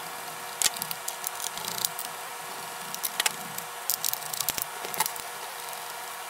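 Small Phillips screwdriver backing screws out of an Alienware M17 laptop's bottom case: irregular light clicks and scratches of the bit turning in the screw heads, with a few sharper ticks as the tool is set against the case.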